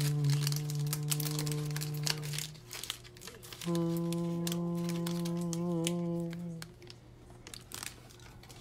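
Foil trading-card pack wrapper crinkling and tearing as it is opened by hand and the cards are pulled out. Two long, steady held notes run over it, one in the first couple of seconds and another from about four to six and a half seconds in.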